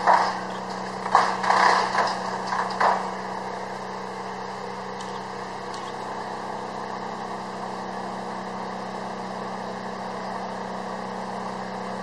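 Steady mechanical hum of machinery running, with a few louder irregular noises in the first three seconds.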